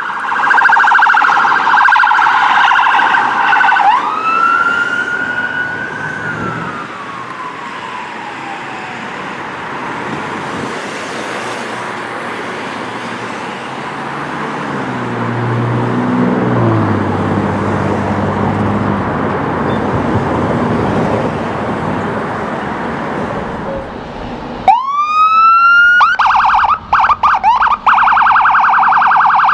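An ambulance's electronic siren warbling fast in a yelp. It switches to a wail that rises once and then slides slowly down as it fades, leaving the hum of passing road traffic. Near the end a fire engine's electronic siren starts with a rising wail and goes straight into a very fast warble.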